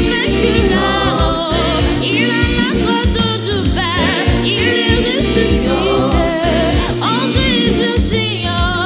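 Gospel music: singing over a steady bass beat.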